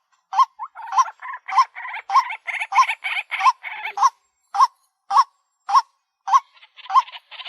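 White-breasted waterhen calling: a loud, clipped note repeated about every half second, with a faster, raspier chattering over it for the first few seconds and again near the end.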